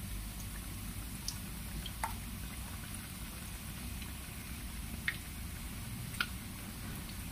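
Hot oil sizzling and bubbling in a wok as flour-coated, meat-stuffed chillies deep-fry, with a few sharp pops and crackles.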